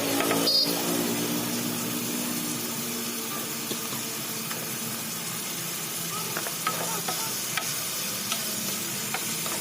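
Food sizzling in a hot pan while being stirred, with scattered light clicks of a cooking utensil against the pan.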